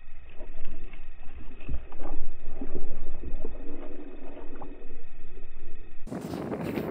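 Hooked pike thrashing and splashing at the water surface, heard muffled through a camera right at the waterline; the loudest splashes come about two to three seconds in. Near the end the sound opens up into wind buffeting the microphone.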